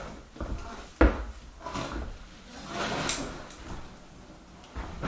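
Knocks, thumps and scraping as boxes and a hand truck are handled and moved across a plywood floor, with the loudest bang about a second in.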